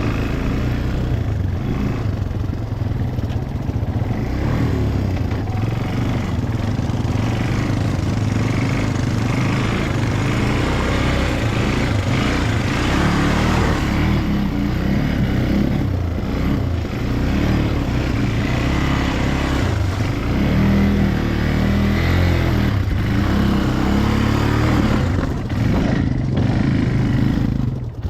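ATV engine running while riding, its engine note rising and falling a little with the throttle.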